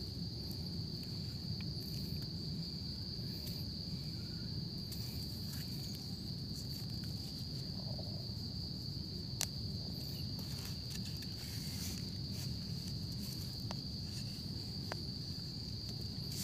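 Insects trilling steadily at one high pitch, like crickets, over a low rumble, with a few sharp clicks and scrapes from hands and a knife working in dry leaf litter and soil; the loudest click comes about nine seconds in.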